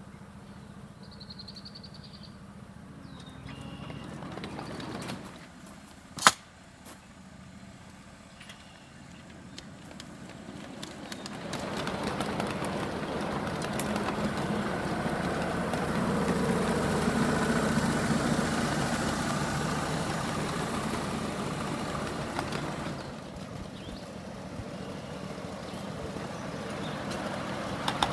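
A 1.5-inch-scale ride-on miniature train rolling along the track: the rumble and clatter of its steel wheels on the rails swells about 11 seconds in, is loudest a few seconds later, and fades away. Earlier there is a single sharp knock, and a bird chirps faintly near the start.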